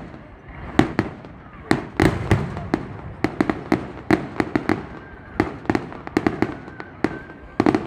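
Fireworks exploding in a rapid, irregular series of sharp bangs, several a second, with a low rumble between them.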